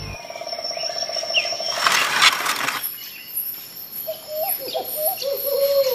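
Outdoor nature ambience: a steady high insect drone, with a brief burst of rushing noise about two seconds in and a few short bird chirps in the second half.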